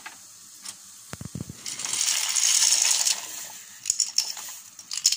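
Dry penne tipped from a bowl into a steel stockpot of boiling water: a rush of clattering and splashing about two seconds in, then a few separate clinks.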